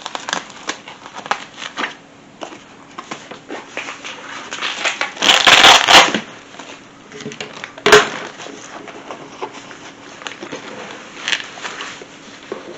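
Folding portable solar panels being handled, with crinkling and rustling throughout. About five seconds in there is a louder rushing scrape, and a sharp click comes just before eight seconds.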